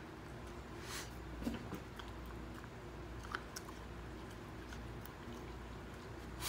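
A dog eating dry food from a ceramic bowl: steady chewing and crunching with scattered sharp clicks.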